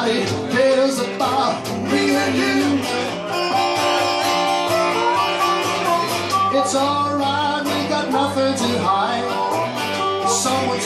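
Acoustic guitar strummed with a harmonica played over it, holding and bending notes, in a live acoustic duo.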